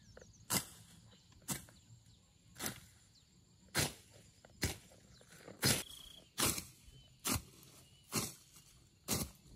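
A steady series of short, crisp crunching strikes, about one a second, from a person working or walking through the undergrowth.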